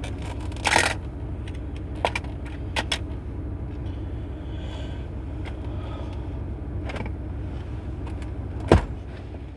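Truck engine idling, heard from inside the cab as a steady low hum. Scattered clicks and knocks from small items being handled sound over it, the loudest a sharp knock near the end.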